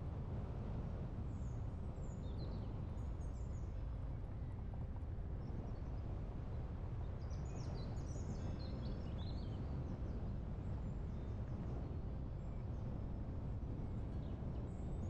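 Steady low rumble of wind blowing, with birds chirping and singing over it in short high bursts: a few about a second or two in, a busier spell around the middle, and a few more near the end.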